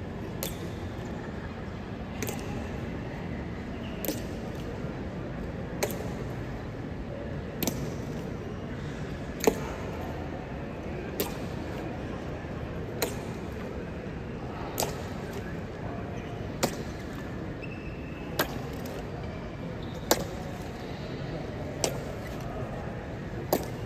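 Slow ceremonial march of honor guards, their boot heels striking the hard floor in sharp, ringing clicks at a steady pace of about one every 1.8 seconds. Underneath is a steady murmur from a packed crowd of visitors.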